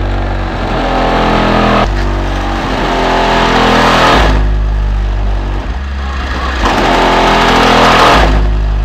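Bass-heavy music played through an Alphard Machete MS-15D4 15-inch dual-voice-coil subwoofer in a 70-litre sealed box, driven by a Calcell 1.5 kW monoblock amplifier into 2 ohms. Deep bass notes change about every two seconds, with rising sweeps above them twice.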